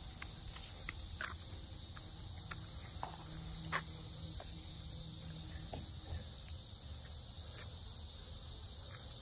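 A steady, high-pitched chorus of insects in summer grass. Underneath is a low rumble, a faint low hum that stops a little past halfway, and a few faint clicks.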